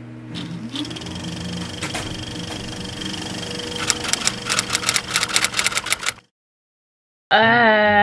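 Typewriter typing sound effect over a steady low hum: key clicks that come thicker and faster, then cut off suddenly about six seconds in. A woman's voice starts near the end.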